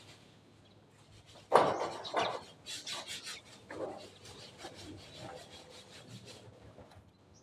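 A sharp knock about a second and a half in, then a run of rhythmic scraping strokes on wood, as in hand-working timber.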